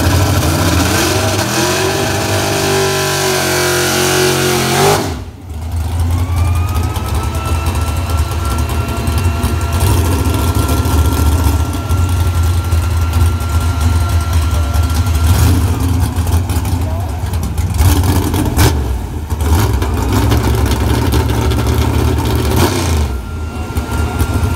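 Big-block V8 drag car engine revving up and holding high for a few seconds, then dropping back suddenly about five seconds in. After that it idles loudly.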